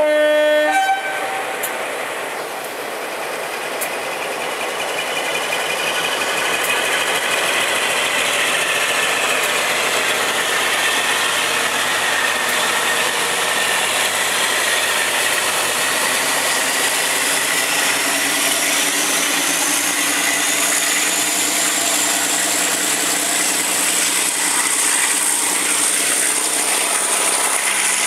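Class 52 'Western' diesel-hydraulic locomotive D1010 sounding its horn, a short low note then a higher one, then its twin Maybach diesel engines opening up to pull the train away, heard from the first carriage behind. The engine noise swells over a few seconds and carries a whine that climbs slowly in pitch as it works harder.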